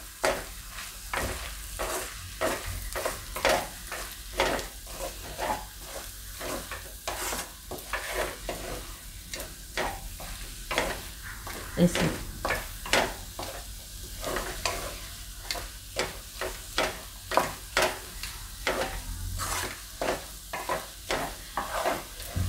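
Metal spatula stirring and scraping a thick mixture of grated fresh turmeric in a metal kadai, about two scrapes a second, over a low sizzle of frying. The turmeric mixture tends to stick to the bottom of the pan.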